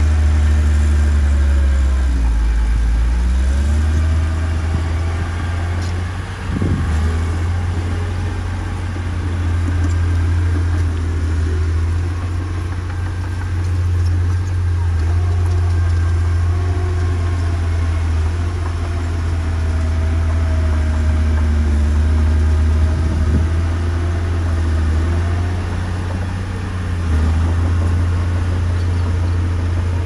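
Diesel engine of heavy earthmoving machinery running with a deep, steady hum, its revs dipping and picking up again a few times.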